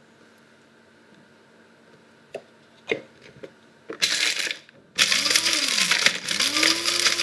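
Small electric blade grinder grinding whole spices (cumin and coriander seeds, cloves, peppercorns): a couple of clicks as the lid goes on, a short burst of the motor, then the motor runs continuously from about five seconds in, its hum falling and rising in pitch under the noise of the seeds being chopped.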